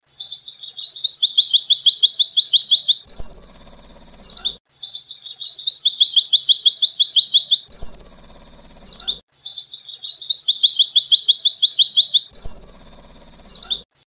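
Recorded song of a white-eye (pleci) singing a dense, canary-like phrase: a run of quick downward-slurred high notes, about eight a second, that runs into a very fast buzzy trill of about a second and a half. The same phrase plays three times, with short silent breaks between.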